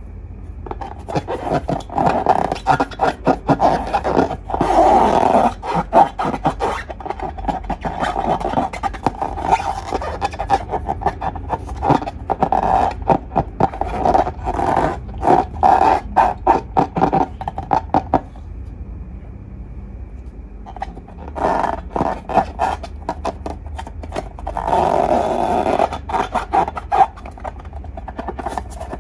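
Slime being squeezed and worked by hand: rapid sticky crackling and popping in bursts, with a pause about two-thirds of the way through.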